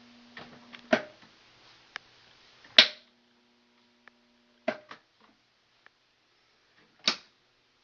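Relays in an HVAC air handler control panel clicking as they switch, about four sharp clicks spread over several seconds. A steady electrical hum cuts off at a click near three seconds in, comes back, then stops again at the next click.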